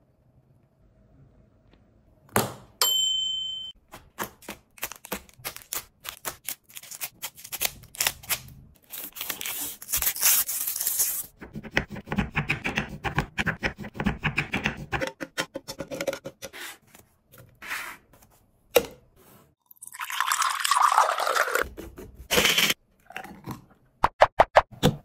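A series of close-miked chocolate-milkshake making sounds: a knife crunching and knocking through a Dairy Milk Silk chocolate bar on a wooden board, with many sharp clicks and crackly stretches. Later comes a pour of thick milkshake into a glass.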